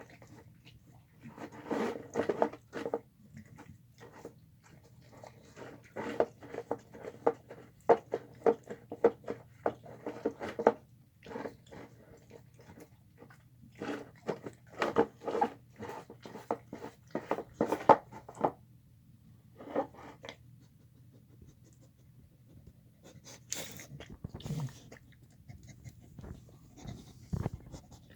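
A dog eating a mix of chicken, rice and beans, chewing and smacking in quick runs of strokes. It pauses for a few seconds about two-thirds of the way through, then starts again.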